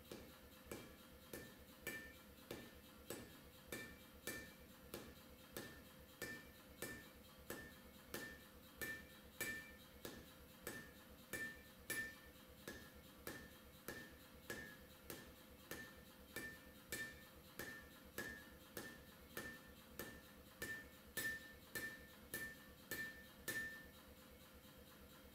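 Hand hammer forging a red-hot steel knife blank on an anvil: a steady run of blows, a little under two a second, each with a short metallic ring. The blows stop shortly before the end.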